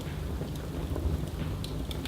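Wood fire burning in a fireplace: a steady low rumble with a few small, sharp crackles.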